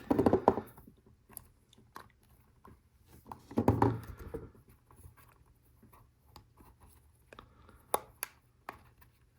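Plastic Lego Technic pieces being handled and pressed together: scattered sharp clicks and crunchy rattles. A denser patch comes about four seconds in, and a few single clicks come near the end.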